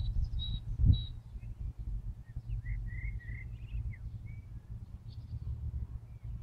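Small birds chirping: a quick run of short, high, evenly spaced chirps at the start, then a different bird's lower twittering chirps from about two and a half to four and a half seconds in. A steady low rumble runs underneath, with one dull thump about a second in.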